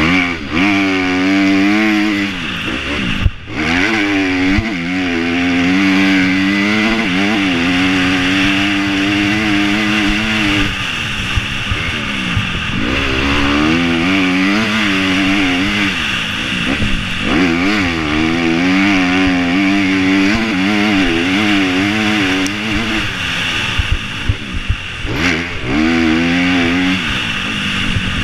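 Motocross dirt bike engine revving up and down again and again as the rider works the throttle and gears, heard from a helmet-mounted camera over a steady hiss. There is a sharp knock about three seconds in.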